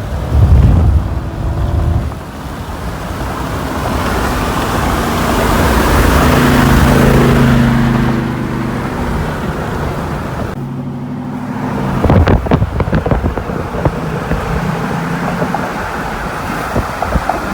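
Pickup truck engine pulling hard under acceleration, with road and wind noise. The engine note holds steady pitches, and the sound drops out briefly about eleven seconds in.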